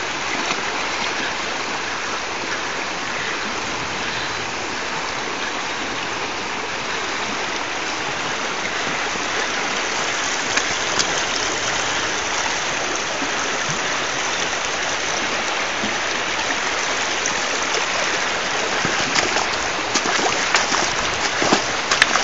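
Fast-flowing river rushing over shallow riffles, a steady, even rush of water. A few sharp clicks and knocks come near the end.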